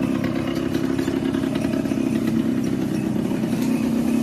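Yamaha RX100's single-cylinder two-stroke engine running at a steady idle. Its silencer has just been fitted with a mesh baffle (jaali), which has toned the exhaust note down.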